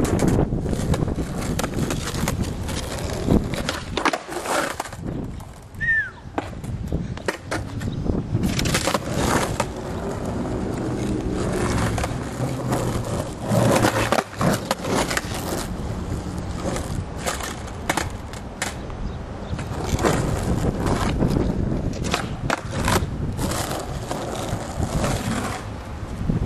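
Skateboard wheels rolling with a continuous rumble over concrete and then asphalt, broken by many sharp wooden clacks of the board popping and landing during flat ground tricks.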